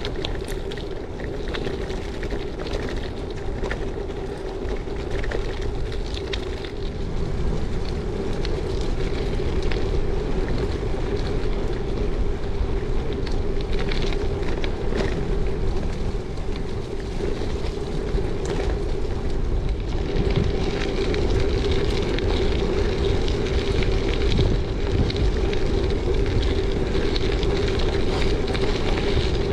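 Gravel bike riding along a forest singletrack: continuous tyre noise over dirt and gravel, with many small clicks and rattles from bumps in the trail and wind on the microphone.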